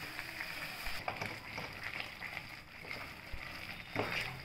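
Almond paste and milk sizzling and bubbling in a nonstick kadhai as a silicone spatula stirs through it, with scattered small crackles.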